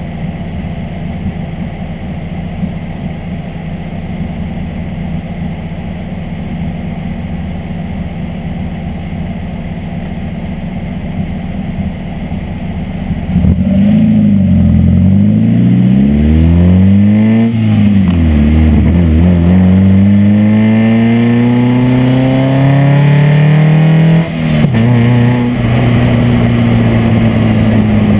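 Mazda Miata four-cylinder engine running on a MegaSquirt plug-and-play ECU, idling steadily, then pulling away hard about halfway through: the engine note climbs and drops at each of several gear changes before settling into a steady cruise near the end.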